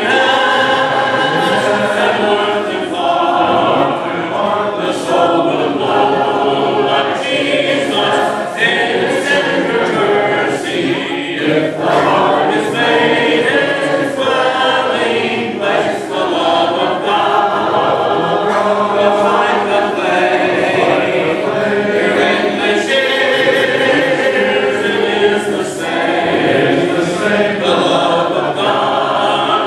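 Church congregation singing a hymn a cappella, many voices together with no instruments.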